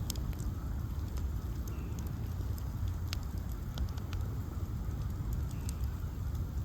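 Ash-log bonfire burning: a steady low rumble of the flames with scattered sharp crackles and pops, the loudest about three seconds in.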